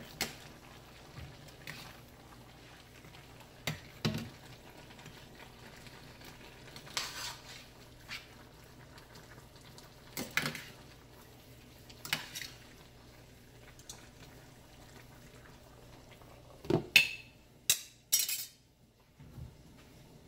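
Metal spoon clinking and scraping against a stainless steel pot while stirring a curry stew, in scattered short strokes. Near the end comes a louder cluster of clatters as the glass lid goes back on the pot.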